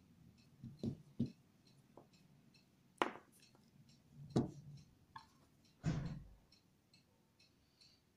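Hands handling a flash drive and a flat plastic USB cable on a tabletop: a string of light knocks and clicks, the loudest about three, four and a half and six seconds in. A faint, quick, even ticking runs underneath.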